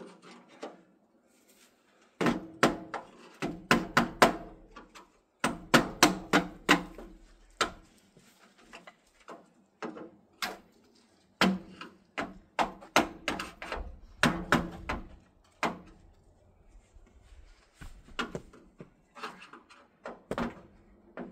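Bursts of rapid, sharp knocks and bangs as tools pry and strike at a chimney cap fused onto its pipe, some blows ringing briefly, with a lighter stretch in the middle.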